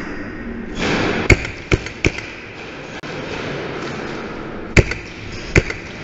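Scattered airsoft gunfire: single sharp cracks, three close together in the first couple of seconds and two more near the end, over the steady background of a large room.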